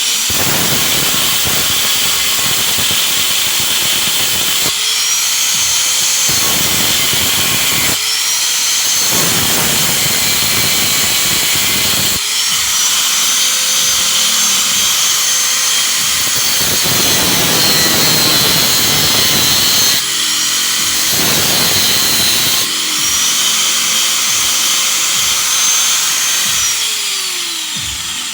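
Angle grinder cutting metal, run in about five bursts, each starting with a rising high whine and spinning down with a falling whine near the end.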